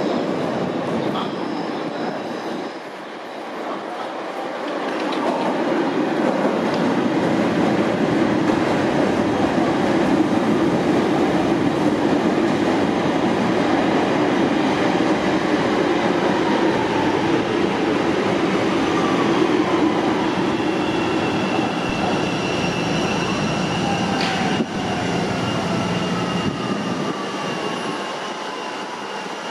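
Chicago 'L' rapid-transit train running past on the tracks, building over the first few seconds and staying loud. In the last third a high, steady wheel squeal and a whine falling in pitch join in.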